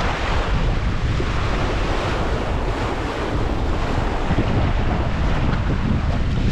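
Strong wind buffeting the microphone out at sea, over the wash of choppy waves.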